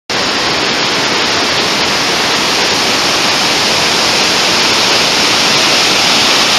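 Loud, steady rushing of a small waterfall pouring into a river.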